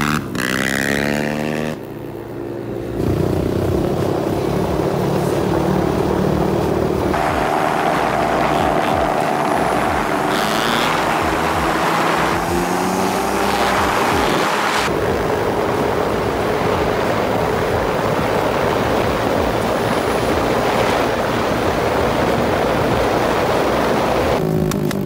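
Quad engine revving and rising in pitch as it accelerates, then a small single-cylinder pit bike engine held at steady high revs through long wheelies, with abrupt changes where clips are cut together.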